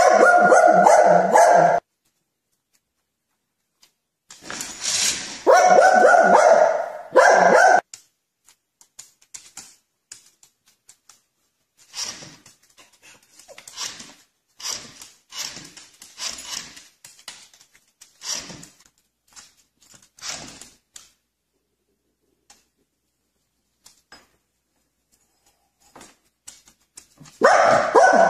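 Small dog barking in loud bouts at the start, again about five seconds in and near the end, with a run of shorter, quieter barks through the middle.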